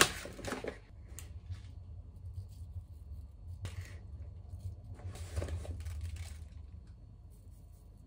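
Kraft-paper stand-up pouches of seeds rustling and crinkling as they are opened and handled, in a few bursts, the longest about five to six seconds in. A sharp click comes right at the start.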